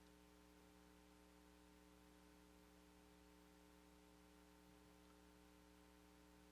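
Near silence: only a faint, steady electrical hum with several even tones, under light hiss.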